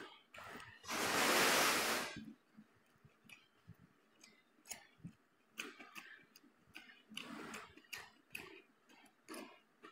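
Close mouth sounds of a person eating rice and curry with his hand: scattered wet chewing and lip-smacking clicks, with one loud breathy rush about a second in that lasts about a second.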